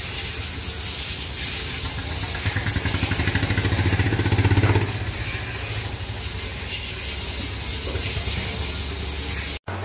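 An engine running steadily with a broad hiss over a low hum. It grows louder with a fast pulsing for a couple of seconds in the middle, then settles back, and the sound cuts off abruptly near the end.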